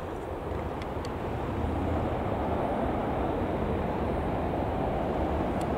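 Jet engines of a twin-engine airliner rolling out along the runway just after touchdown: a steady rumble that swells about a second and a half in, then cuts off suddenly at the end.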